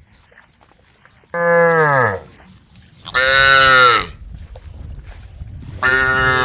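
Cattle mooing: three moos of about a second each, the first sliding down in pitch, the last starting near the end.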